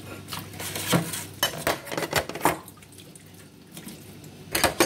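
Dishes and utensils clinking and knocking against each other and a stainless steel sink as they are washed by hand, a string of irregular clatters with a louder cluster near the end, over some running and splashing water.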